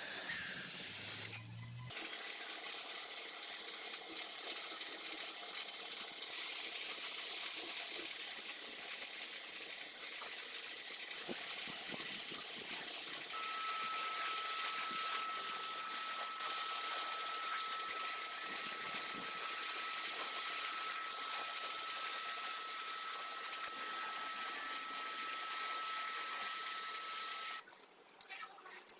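A steady pressurised spraying hiss with a few brief breaks. A thin, steady whistle joins about halfway through, and both cut off near the end.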